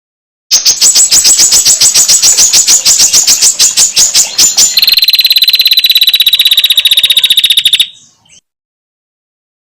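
Female prinia (prenjak) calls: a loud, rapid, dry ticking series begins about half a second in, at roughly ten notes a second. Midway it switches to a faster, higher, more ringing rattle, which cuts off abruptly about two seconds before the end.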